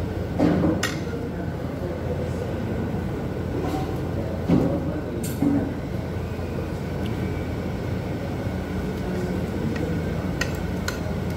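Steady low room hum with a few sharp clinks of a metal fork and spoon against dinner plates: one near the start, one about five seconds in and two near the end.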